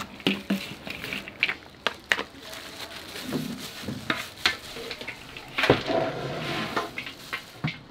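Sticky, syrup-coated puffed snack balls being stirred with a spatula in a large metal bowl: a crackling rustle with many small clicks. About six seconds in they are poured out into a steel tray, a louder rushing rattle.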